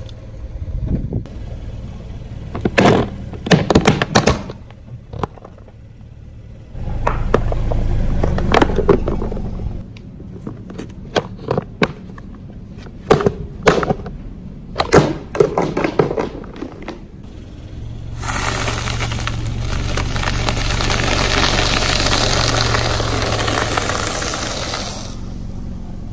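Car tyre rolling over and crushing brittle objects: a run of sharp cracks and crunches, with a low rumble of the car in between. A steady rushing noise fills the last several seconds.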